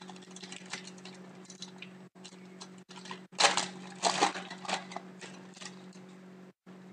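Foil trading-card pack wrapper crinkling and tearing as it is pulled open by hand, with a louder stretch of crackling about halfway through.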